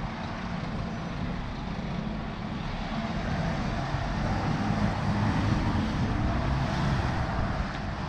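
Strong wind buffeting the microphone over road traffic: a city bus and cars driving past on the street, a steady rumble that grows a little louder midway.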